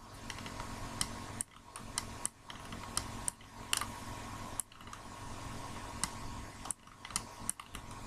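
Irregular sharp computer mouse clicks, about one or two a second, over a steady computer fan hum.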